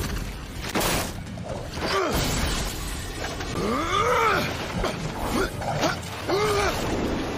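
Anime fight sound effects: a sharp hit about a second in, then a flurry of blows and swishes over music, with several rising-and-falling tones.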